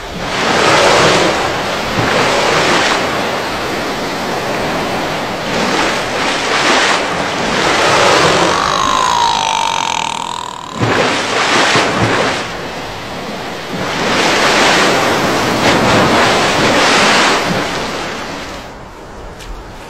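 Ocean surf sound effects, waves washing in and out in repeated swells. About eight seconds in comes a killer whale call, one slightly falling whistle about two seconds long, followed by a splash as the whale breaches.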